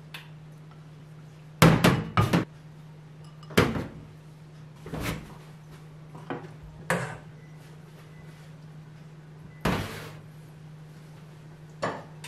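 A serving spoon knocking against a steel pot and ceramic bowls set down on a stainless-steel counter while rice is dished up: about nine sharp clunks, the loudest a quick run of three around two seconds in. A steady low hum runs beneath.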